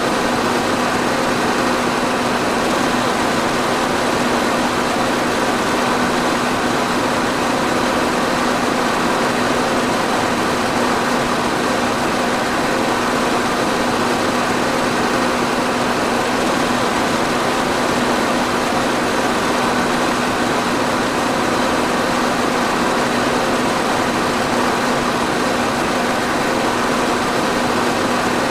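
Electric fan running steadily: an even rush of moving air with a constant low hum from the motor.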